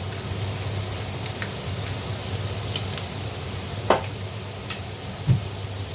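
Tiger shrimp frying in butter and garlic in a pan, a steady sizzle with faint scattered crackles. Two sharp knocks stand out, about four seconds in and again a second later.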